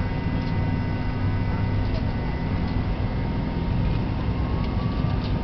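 Jet airliner cabin noise from a window seat as the plane moves along the runway: a steady engine drone and rolling rumble, with a low hum and a faint high whine.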